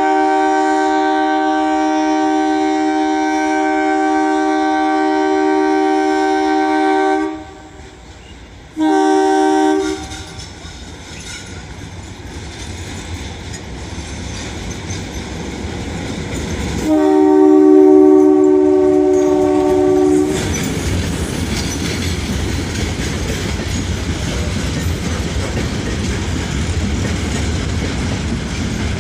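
WDG-3A diesel locomotive sounding its two-tone horn: one long blast of about seven seconds, a short blast, then a third blast of about three seconds, while the rumble of the approaching goods train grows louder. In the last part the loaded BCNA wagons roll past with a steady rumble and clickety-clack.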